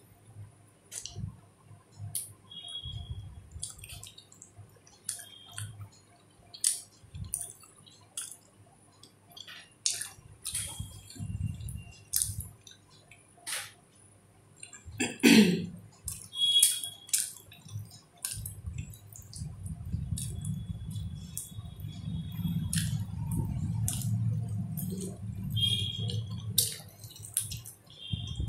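Eating rice and chicken curry by hand, heard close: wet chewing, lip smacks and squishy clicks in an irregular string, with a longer stretch of steady chewing in the second half. About halfway through comes one louder short sound that falls in pitch.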